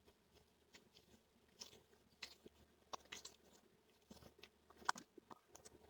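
Near silence with a few faint, scattered clicks and crinkles of small craft foam and paper pieces being handled and pressed into place.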